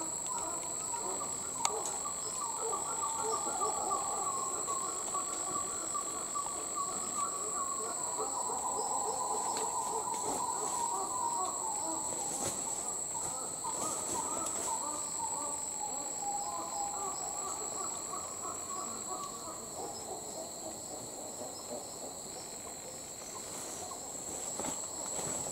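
Dusky titi monkeys calling: long runs of rapid repeated notes that rise and fall for close to twenty seconds and then fade out. This is the family group's territorial call. A steady high-pitched insect drone runs underneath.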